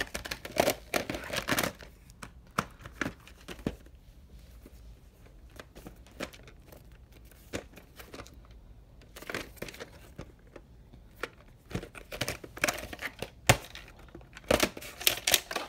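Plastic VHS clamshell cases being handled: irregular clicks, snaps and rustles as the hinged cases are opened and closed, in clusters near the start and again toward the end.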